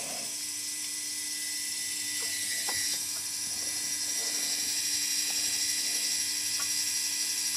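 Small Maxon geared DC motor running steadily with a high whine, turning the transponder's release mechanism through its gear train to latch the hook. It gets slightly louder about two seconds in, with a few faint clicks from the mechanism.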